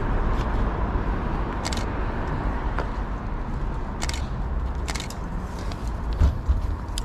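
Steady outdoor traffic rumble, with a few short hissy scratches scattered through it and two dull thumps near the end.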